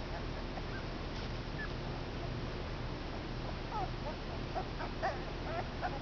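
Two-week-old Komondor puppies squeaking and whimpering in short, high calls: a few at first, then about three or four a second in the second half.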